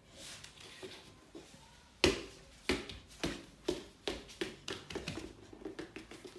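A sharp knock about two seconds in, then a run of soft irregular thuds and taps, about two a second: a toddler's steps and stomps on a foam puzzle play mat.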